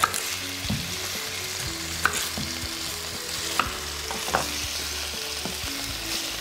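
Pork rib pieces sizzling in hot oil with onion in a pan as they are browned, with a few sharp clicks of the utensil against the pan as they are turned.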